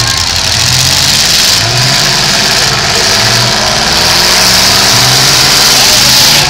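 Eight-cylinder demolition derby car engine revving hard in repeated surges about a second apart, over a loud steady rushing noise.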